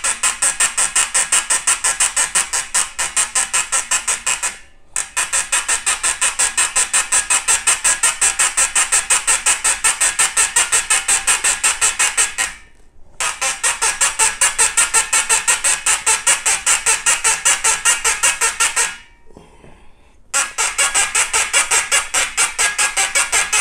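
Corroded brass tube of a vintage Slingerland single-piston bugle being twisted back and forth in its joint, squeaking rhythmically about five times a second, with three short pauses. This is a frozen tube being worked free after it has broken loose.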